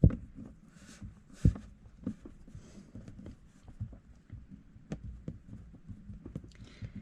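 A Phillips screwdriver working a screw out of a plastic dash-top mount: scattered small clicks and knocks of the tool and the part being handled, with a sharper knock at the start and another about one and a half seconds in.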